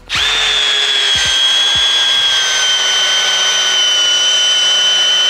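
Milwaukee M12 Fuel Gen 2 cordless hammer drill, in drill mode, driving a 5-inch PowerLag screw into wood under heavy load. It gives a steady brushless-motor whine whose pitch sags slightly as the screw goes deeper.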